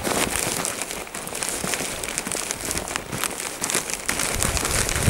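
Footsteps crunching through fresh, deep snow at a walking pace, about two steps a second.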